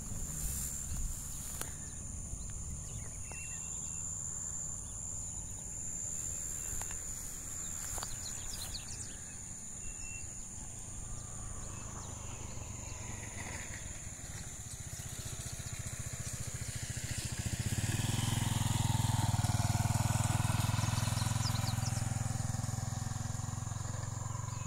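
Rural ambience with a steady high-pitched insect drone and a few bird chirps. About three-quarters of the way in, a motor vehicle's engine hum comes up, is loudest about twenty seconds in, then eases slightly.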